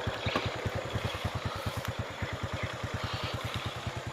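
Small motorcycle engine idling steadily, an even low putter of about a dozen pulses a second.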